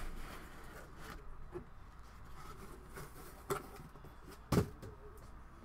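Cardboard boxes being handled: faint rustling, a light knock about three and a half seconds in and a sharper, louder knock about a second later.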